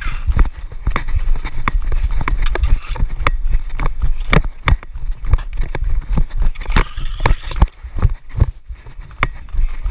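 Rapid, irregular clicks and knocks of dek hockey play heard close up on a player-worn action camera: footsteps on the plastic tile floor and the stick clacking on floor and ball, over a steady low rumble of wind and handling on the microphone.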